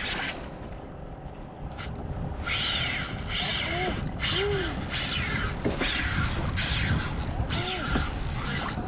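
Fishing reel's drag buzzing as a hooked fish pulls line off it, in about seven runs of under a second each with short pauses between, starting a couple of seconds in.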